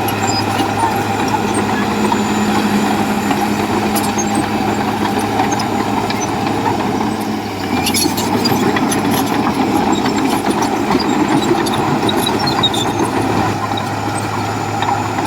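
Komatsu bulldozer's diesel engine running steadily under load, with scattered sharp clicks and clanks. The engine note dips briefly about seven seconds in, then picks up again.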